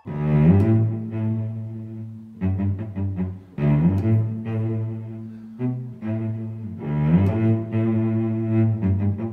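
Low, slow bowed-string music in the manner of a cello: long sustained notes, each sliding up into pitch at its start, in phrases that break off and start again a few times.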